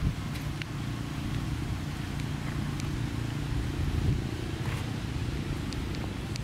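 Steady low motor hum, like a running engine, with two soft low bumps, one right at the start and one about four seconds in, and faint short high ticks here and there.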